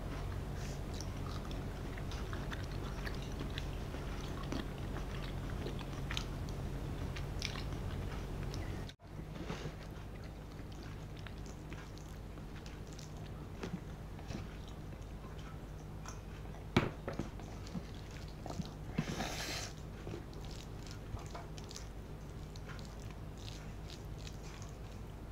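Close-miked chewing and eating sounds of rice, curries and vegetables eaten by hand: soft chews and many small clicks over a low steady hum. A sharp click about two-thirds of the way through, and a short noisy burst a couple of seconds later.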